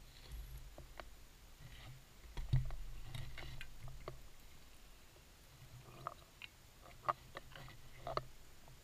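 Scuba diver's breathing heard underwater: low rumbles of exhaled regulator bubbles, a short one at the start and a longer one from about two and a half seconds in, followed by scattered small clicks and ticks.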